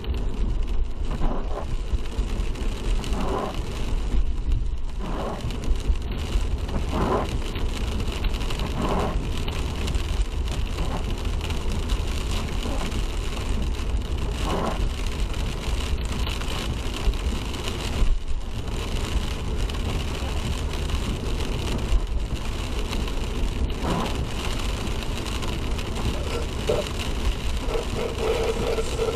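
Car driving on a wet road in the rain, heard from inside the cabin: steady low road and engine rumble with tyre and rain hiss.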